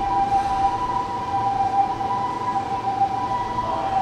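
A steady high-pitched two-note tone held unbroken, over a low rumble.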